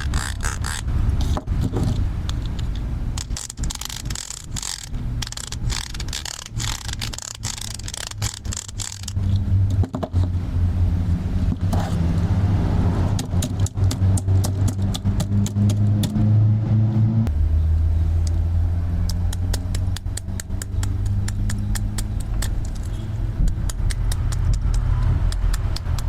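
Plastic toy tools clicking and scraping, then from about nine seconds a battery-powered toy power tool running with a low steady buzz under rapid clicks, its pitch dropping once about two-thirds of the way through.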